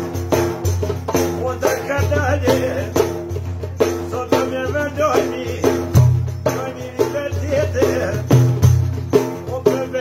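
Folk singing with a large frame drum with metal jingles (def) beaten in a steady rhythm, over a low, steady bass accompaniment; the voice comes in short phrases between the drum strokes.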